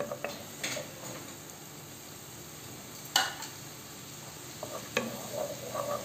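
Minced garlic sizzling steadily in oil in a non-stick frying pan as it is stirred with a spatula, with one sharp tap about three seconds in.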